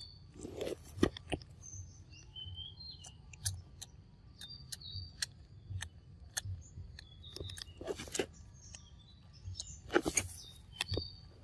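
Long-tailed macaque licking and chewing at a plastic snack pouch held to its mouth: many short wet smacking clicks and a few louder noisy bursts as the pouch is worked, about 8 and 10 seconds in. Birds chirp in the background.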